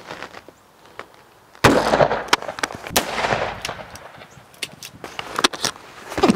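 A single shot from an AR-style 5.56 carbine firing an M855 green-tip round, a loud crack about one and a half seconds in with a short echo trailing off. Smaller clicks and knocks follow.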